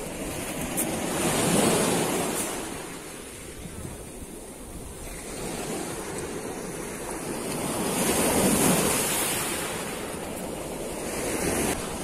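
Black Sea surf washing on the shore, swelling twice, the second swell about seven seconds after the first, with wind rumbling on the microphone.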